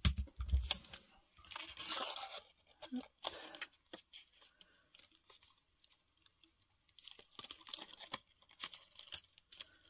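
Clear adhesive tape being pulled off and torn in short ripping bursts, about two seconds in and again near the end, with soft handling knocks at the start.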